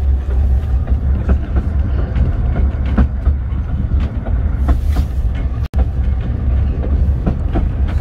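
Narrow-gauge heritage train carriage under way, heard from inside the wooden coach: a steady low rumble of the wheels on the track, with frequent clicks and rattles from the carriage. The sound cuts out for an instant about two thirds of the way in.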